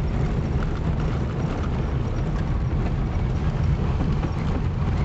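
Car on the move: a steady low rumble of road and wind noise, with small irregular knocks and rattles through it.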